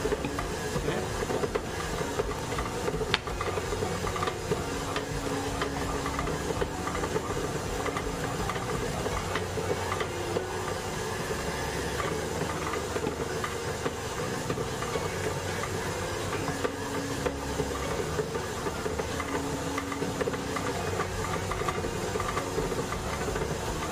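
Bowl-lift stand mixer running steadily at medium speed, kneading sweet bread dough: a constant motor hum with light, irregular ticking.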